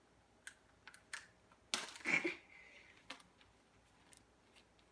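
Small wooden sticks clicking and clattering as they are picked up and dropped, a few separate light taps with a louder rustle about two seconds in.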